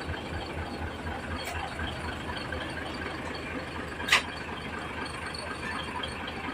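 Mitsubishi Fuso 6M70 inline-six diesel idling steadily with an even low pulsing, its injectors freshly refitted. A short sharp chirp about four seconds in.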